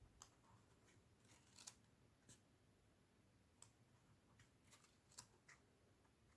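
Faint, scattered ticks and soft rustles of glossy photo-book pages being handled and turned.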